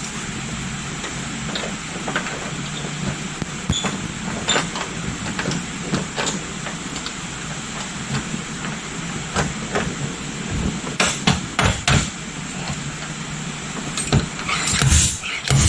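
Scattered light taps and knocks, as of tools working a car body panel, over a steady hum; the knocks grow louder and closer together near the end.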